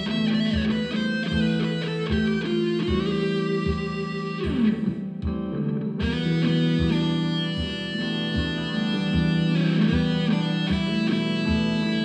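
Guitar music, electric guitar over a steady low beat.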